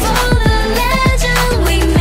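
Pop dance track with a steady beat of deep kick drums and bass under women's voices singing.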